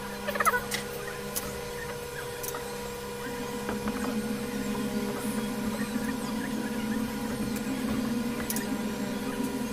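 A few sharp clicks and scrapes of electrical wires being handled at a junction box, the loudest about half a second in, over a steady machine hum. From about three seconds in a lower rough drone joins the hum and continues.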